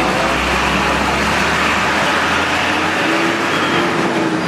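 Passing road traffic: a steady rush of tyre and engine noise.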